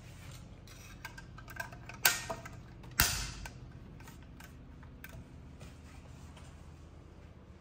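Light clicks and handling noise from hard objects being moved about, with two sharp knocks about a second apart.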